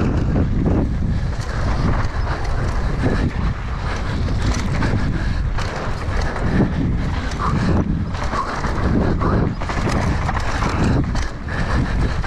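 Wind rushing over an action camera's microphone on a mountain bike riding fast down a dirt trail, with frequent knocks and rattles from the bike over rough ground.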